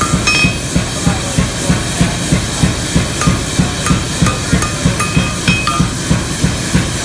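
Hammer blows on steel at an anvil while forging an S-hook, a steady run of about three strikes a second, with short ringing tones after some of the blows.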